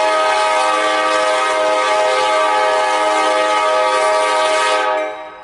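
BNSF diesel locomotive's air horn sounding one long blast of several notes at once. The blast fades out about five seconds in.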